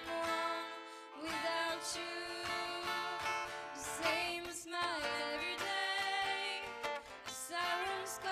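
Music: a song with guitar accompaniment and a singing voice.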